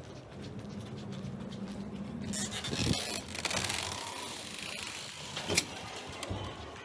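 A glass entrance door being pulled open and walked through, with a steady low hum at first, a rush of noise as the door opens, and one sharp clack about five and a half seconds in.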